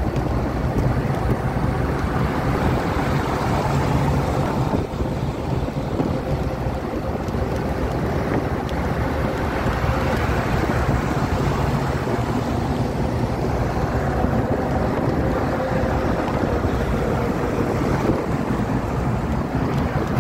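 Steady road noise from a car moving at highway speed: tyre roar on the asphalt and rushing wind, with a low steady hum underneath.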